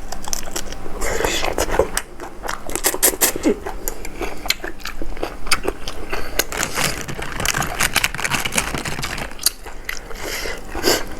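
Close-up eating sounds: irregular biting and chewing with wet, smacking mouth noises and some crunch, of blanched shrimp and squid in a spicy Thai seafood salad.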